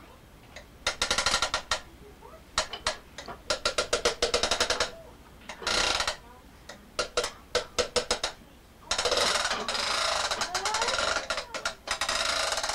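Plastic toys clicking and rattling in quick runs of sharp clicks, broken by several longer buzzing, rasping stretches. The longest, about nine seconds in, lasts two to three seconds.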